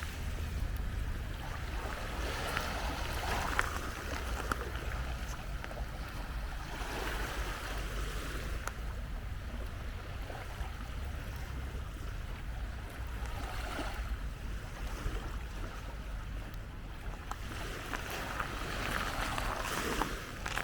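Small waves washing onto a sandy beach, swelling and fading every few seconds, over a steady low rumble of wind on the microphone.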